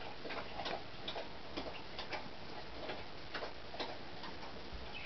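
Puppy lapping water from the bottom of a bathtub: a faint run of small, irregular wet clicks.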